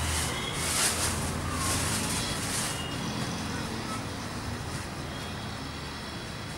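Street traffic noise: a steady low rumble of vehicle engines, with a few short hissing sounds in the first three seconds.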